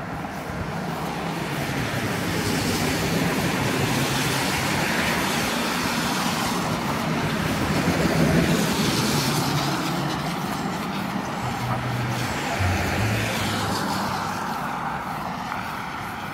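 Road traffic passing along the street: engine hum and tyre noise swelling over the first few seconds, loudest about eight seconds in, then fading.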